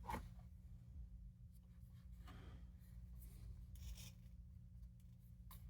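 Near silence: a few faint rustles and light clicks of handling over a steady low hum.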